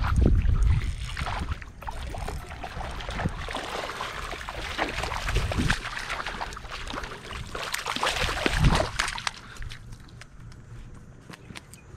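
Shallow water sloshing and splashing underfoot as someone wades, in irregular surges, with wind buffeting the microphone at the start. It quietens to a few light ticks near the end.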